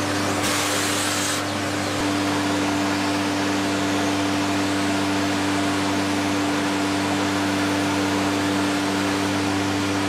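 Vacuum cleaner running steadily with a constant whine, sucking through a long extension wand. A louder rush of air lasts about a second near the start, and there is a faint tap about two seconds in.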